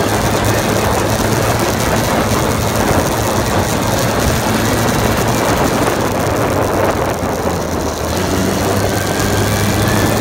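Four-wheeler (ATV) engine running steadily while being ridden, with heavy wind rushing over the microphone.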